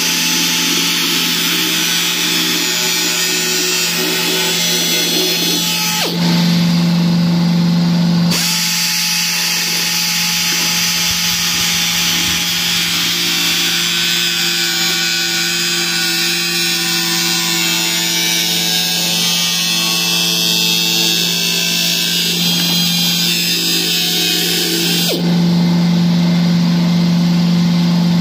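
Handheld abrasive cut-off wheel running steadily and cutting through a Corvette's sheet-metal cowl and firewall: a constant motor note under a harsh grinding hiss. The hiss eases and the motor note gets louder for a couple of seconds about six seconds in, and again near the end.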